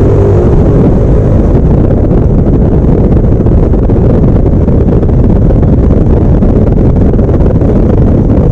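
Wind buffeting the action camera microphone on a Yamaha NMAX scooter riding at speed, a loud, steady low rumble that buries the scooter's engine.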